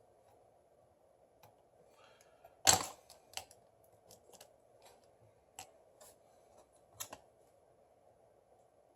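Light clicks and taps of small tools and parts being handled while reassembling a smartphone, one louder click about three seconds in and a dozen softer ones spread over the next few seconds, over a faint steady hum.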